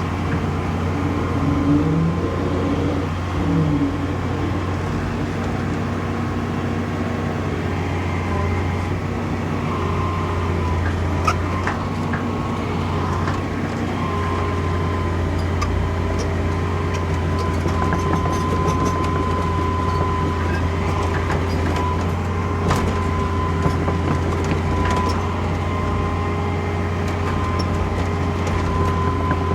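Excavator diesel engine running steadily: a constant low drone with a thin steady whine above it and occasional small clicks and knocks.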